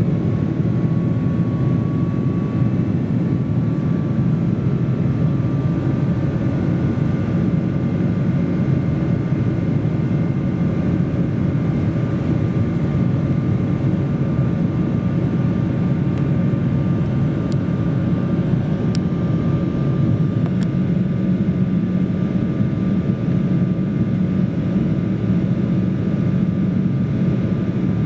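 Steady in-cabin noise of a Boeing 777-200ER in flight, heard beside its Rolls-Royce Trent 800 engine: an even low roar of engine and airflow with a faint whine over it that rises slightly in the first few seconds.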